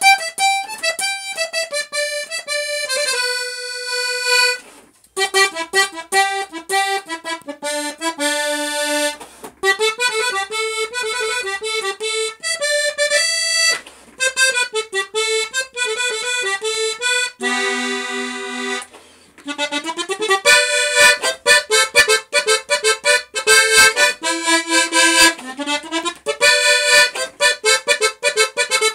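Button accordion played solo, a medley of tunes in quick runs of short notes, with a couple of long held chords and brief breaks between phrases.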